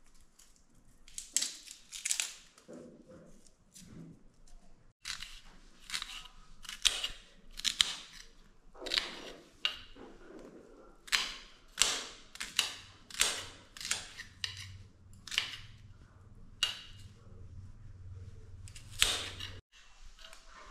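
Kitchen knife chopping red onions on a bare stone countertop: sharp, irregular knocks of the blade striking the stone, roughly one a second.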